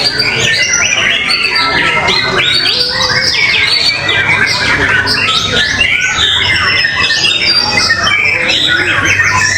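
Many caged songbirds singing at once in competition, a dense unbroken chorus of overlapping chirps, trills and whistles.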